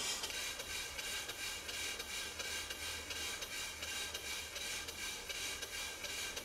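Model steeple steam engine running on compressed air: a steady, hissing exhaust chuff in a quick, even beat.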